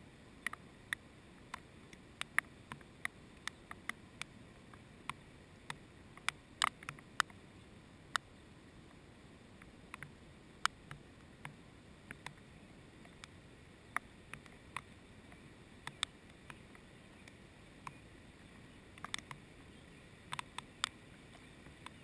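Scattered sharp clicks and ticks at an irregular pace, about one to three a second, over a faint steady outdoor background.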